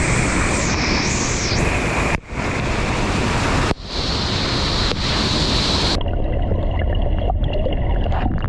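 Steady roar of falling, rushing water at a waterfall, with wind noise on the microphone. It breaks off briefly twice, about two and three and a half seconds in, and turns duller after about six seconds.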